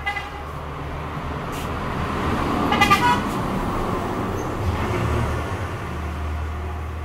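Road traffic: a motor vehicle's low engine rumble swells and fades as it passes. A vehicle horn gives a short toot at the start and another about three seconds in, at the loudest point.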